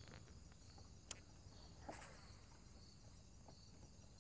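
Near silence: faint high-pitched insect chirping, a steady drone with a regular soft pulse, broken by two light clicks about one and two seconds in.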